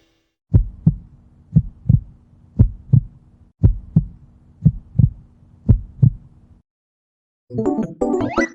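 Heartbeat sound effect: six double thumps, about one beat a second, over a faint low drone, then stopping. Piano and synth music starts near the end.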